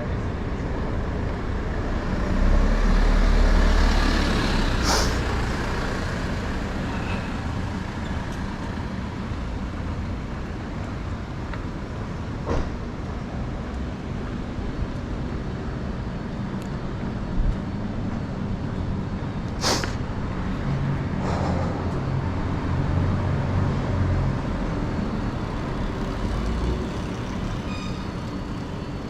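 City street traffic: steady engine rumble, louder as a heavy vehicle passes about three seconds in, with a few short sharp hisses or clicks, the clearest near five and twenty seconds.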